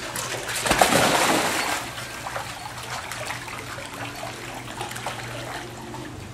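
A big splash about a second in, then lighter, irregular splashing and sloshing of water as a German Shorthaired Pointer swims, over a steady low hum.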